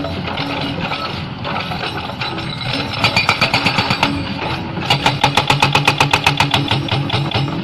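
Hydraulic rock breaker on a Hyundai excavator hammering in rapid, even blows, about eight a second. It runs in two bursts, from about three seconds in and again from about five seconds in until just before the end. Between them only the excavator's diesel engine is heard running.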